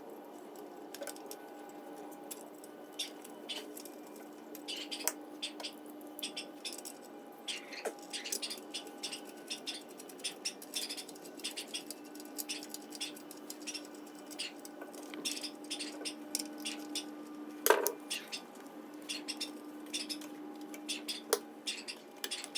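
Light clicks and rattles of hand work on a Briggs & Stratton engine as its air cleaner is refitted, with one sharper knock a little past halfway, over a faint steady hum.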